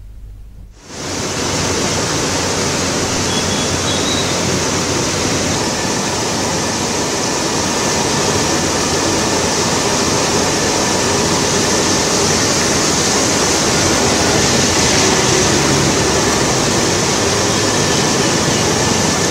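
Floodwater rushing and pouring through a culvert and over a stone wall: a loud, steady rush of water that starts suddenly about a second in.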